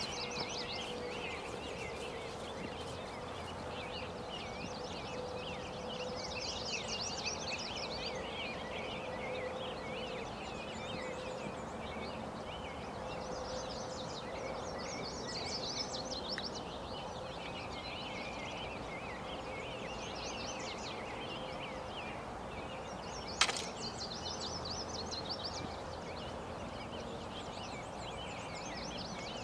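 Outdoor ambience of small songbirds chirping and trilling in overlapping bursts, over a faint steady hum. A single sharp click sounds once, about 23 seconds in.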